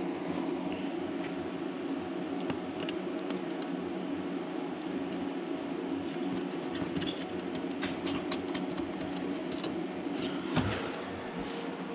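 Small parts and hardware being handled during hand work on boat fittings: scattered light clicks and taps, a quick run of clicks partway through and a knock near the end, over a steady low hum like a fan.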